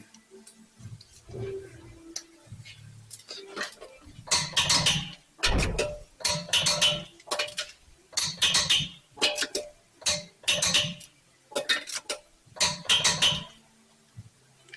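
Ratchet wrench clicking in about nine quick strokes, snugging down a nut that is to be torqued to 140 foot-pounds, likely the wheel's lug nuts. A few soft knocks come before the ratcheting starts.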